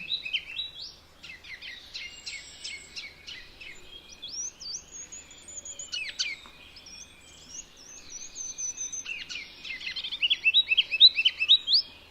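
Ruby-crowned kinglet singing: fast runs of short, high, rising notes, loudest about ten seconds in. Other high thin whistles and a falling sweep sound between the runs.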